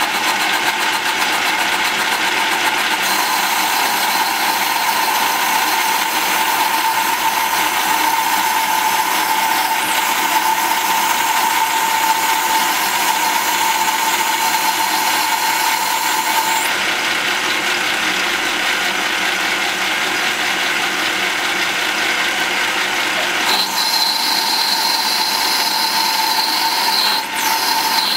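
Kunaver "700" metal lathe from 1941–42, belt-driven by its small electric motor, running steadily with its gears whirring. A steady whine drops away about sixteen seconds in, and a higher whine comes in about seven seconds later.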